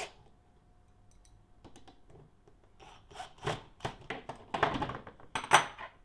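Small parts and hand tools handled on a desk: a quiet stretch, then from about three seconds in a run of clicks, knocks and short scrapes, the loudest about five and a half seconds in.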